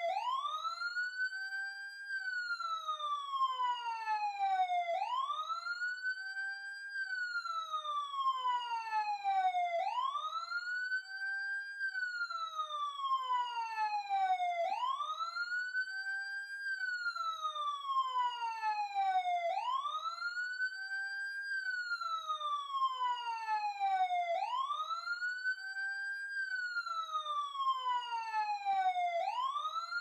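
Emergency vehicle siren, close, sounding a slow wail. Each cycle rises quickly in pitch, holds briefly at the top, then falls slowly, repeating about every five seconds.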